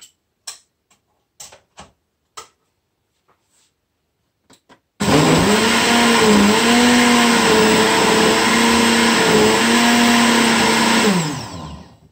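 Countertop jug blender re-blending a strawberry-banana smoothie that still has whole strawberry lumps in it: it starts suddenly about five seconds in, runs loudly for about six seconds with its motor pitch dipping and recovering a few times, then winds down near the end. Before it, a few light clicks and knocks of handling.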